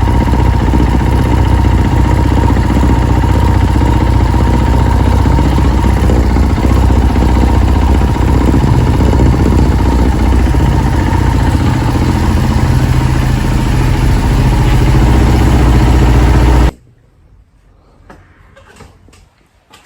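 KTM EXC dirt bike engine running steadily, loud and unbroken, until it cuts off suddenly near the end.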